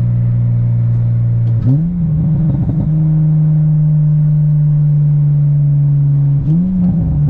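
Car engine running steadily, revved up briefly about a second and a half in and again near the end, each time settling back.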